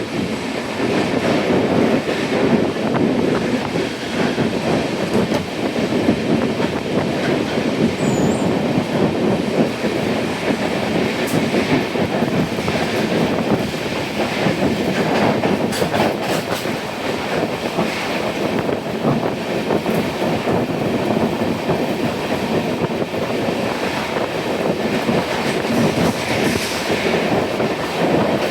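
Passenger train running along the track, heard on board: a steady rumble of wheels on rail with clickety-clack of the rail joints and a few sharp clicks and a brief high squeal of wheels.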